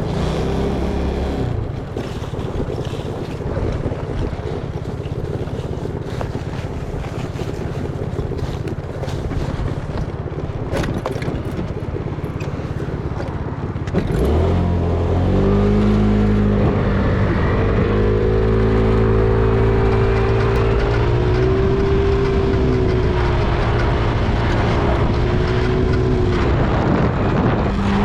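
Low rumble with wind on the microphone, then about halfway through a louder engine starts running, a steady low hum whose pitch drifts slightly up and down.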